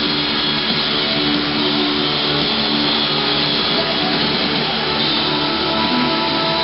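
Background music with guitar, no singing.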